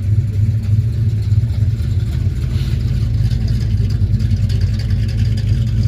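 A vehicle engine running at a steady speed, a low, evenly pulsing rumble that stays level throughout.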